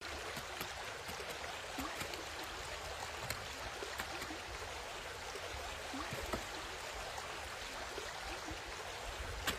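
Water running steadily in a concrete tank, with a few faint clicks.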